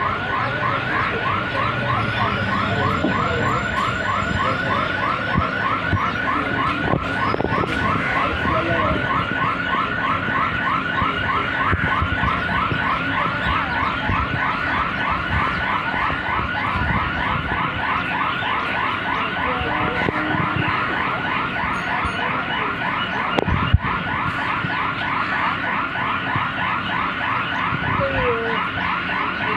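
Twelve-coach BEML electric multiple unit local train pulling into the platform and standing, its running noise steady. Over it comes a repeating electronic chirping, about four rising chirps a second, which grows fainter in the second half.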